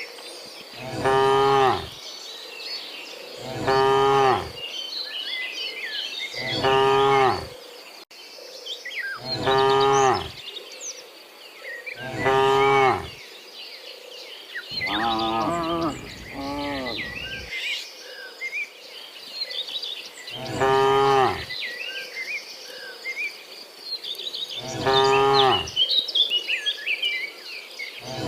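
Cattle mooing repeatedly: about nine long moos a few seconds apart, two of them overlapping near the middle. Between the moos, birds chirp and insects buzz steadily.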